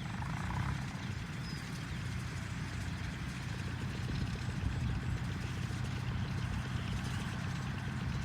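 Straw baler running steadily: a low motor hum with a fast, even ticking.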